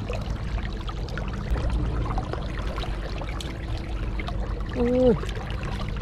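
Water splashing and trickling as hands scoop fish about in a woven bamboo basket held in shallow water, with many small splashes. A short voiced exclamation comes about five seconds in.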